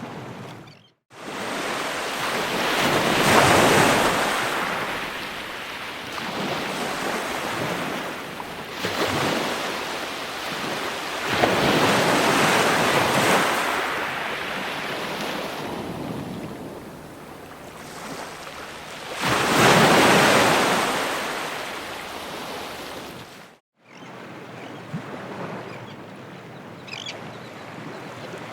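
Ocean waves breaking and washing on the shore, swelling and ebbing in three big surges roughly eight seconds apart. The sound cuts out completely for a moment about a second in and again near the end.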